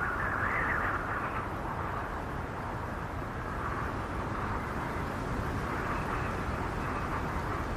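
Snowstorm wind howling: a steady rushing noise that swells in gusts, rising to a higher whistle about half a second in.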